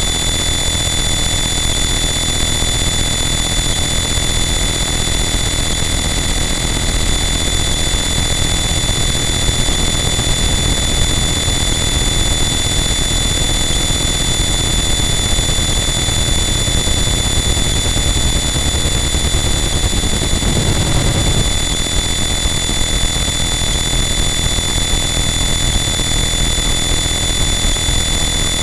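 Harsh noise wall: a loud, unchanging wall of dense distorted static with several steady high-pitched tones sitting on top of it. About twenty seconds in, a brief low swell rises out of the mass.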